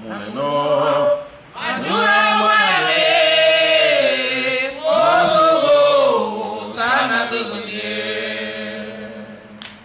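A group of voices chanting a Garifuna song in long held notes that slide in pitch, with a short break just after a second in.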